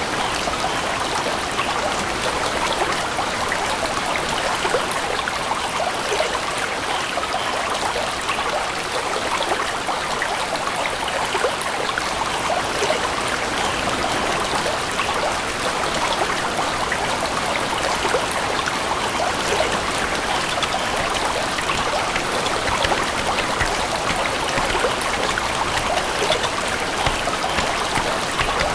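Water running steadily in a babbling stream, an even rush with fine trickling detail and no change throughout.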